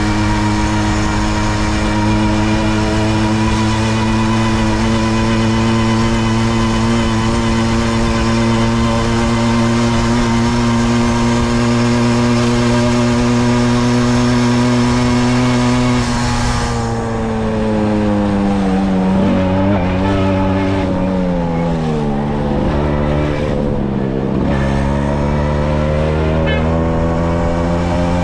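Tomos A3 moped's small two-stroke single-cylinder engine running steadily at cruising speed. About two-thirds of the way through its pitch drops and wavers as the moped slows, then rises again as it pulls away.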